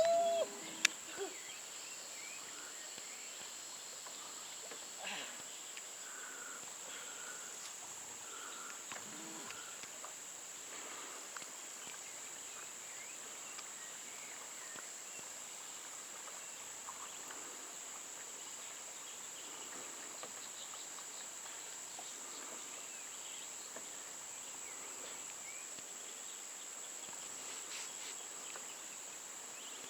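Steady high-pitched chorus of insects, with a few faint chirps and light knocks now and then.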